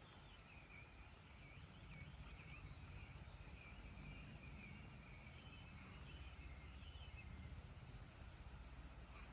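A faint, high, wavering animal call that rises and falls continuously for about seven seconds, over a low steady rumble.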